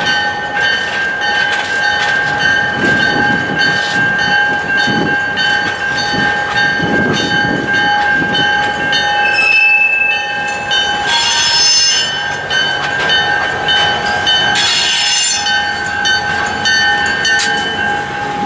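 Freight train of covered hoppers behind a diesel locomotive rolling slowly past, its wheels giving a steady high squeal that turns into two louder, shriller squeals about two-thirds of the way through. A grade-crossing bell rings repeatedly under it.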